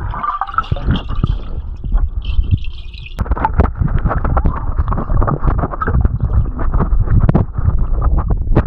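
Otters splashing and tumbling in pool water: continual sloshing with many irregular splashes, and a brief higher hiss a little over two seconds in.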